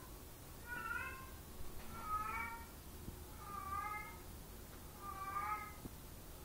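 Kitten meowing four times, about one and a half seconds apart, each meow a short call that rises and falls in pitch.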